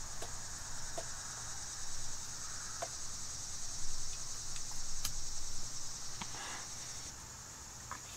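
Steady high-pitched chorus of insects, with a few short clicks and knocks scattered through it.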